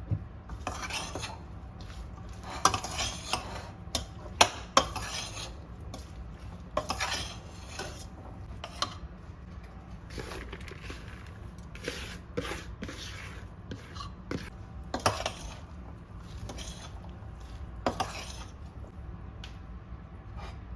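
Kitchen utensils and dishes being handled: irregular scraping strokes and sharp clinks of cutlery against pots and plates, with a steady low hum beneath.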